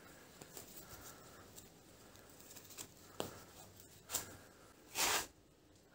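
Hands handling a fishing net's twine and float line: faint rustling, a sharp click about three seconds in, and two short rustles near the end, the last one the loudest.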